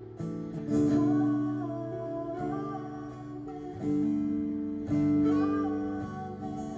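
Two acoustic guitars strummed with a woman singing long held notes. The strumming comes in louder about a second in, and again around four and five seconds in.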